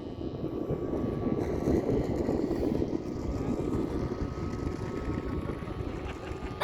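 Engine and propeller of a large RC model airplane droning steadily in flight.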